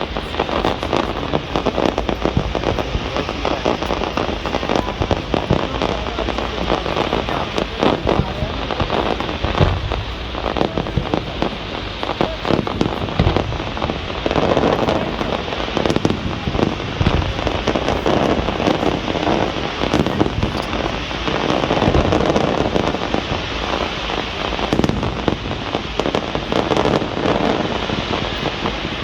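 Fireworks display crackling continuously: a dense, rapid patter of small cracks and pops, swelling louder several times.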